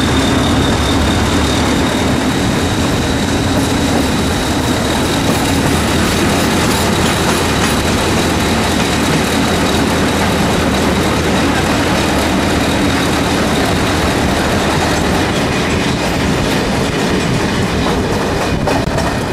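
Passenger train rolling through station tracks, heard from an open carriage window: a steady running rumble with wheels clattering over rail joints and points. A thin, high wheel squeal is heard at first and fades after about six seconds.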